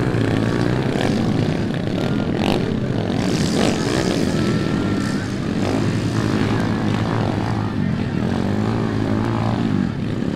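Dirt bike engines revving on an enduro course, their pitch rising and falling as the riders work the throttle.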